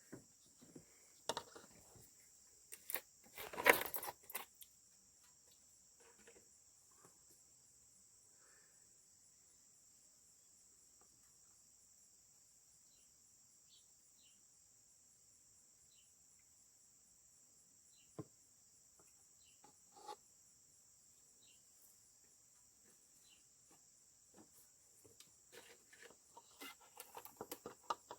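Insects chirring steadily at a high pitch in the background, with scattered small clicks and knocks and a brief louder rustle about four seconds in.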